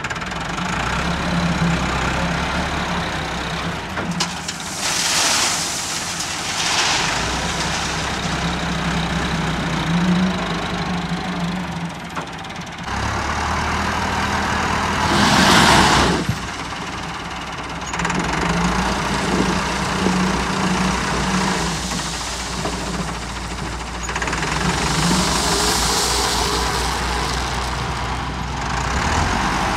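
Massey Ferguson tractor's diesel engine running and working under load, its pitch rising and falling as the front loader is driven and raised. Several short rushes of noise cut across it, the loudest about halfway through, as the loader bucket digs into and tips out gravel.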